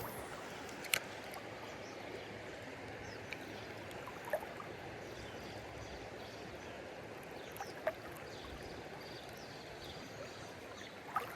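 River water flowing steadily, with a few faint clicks.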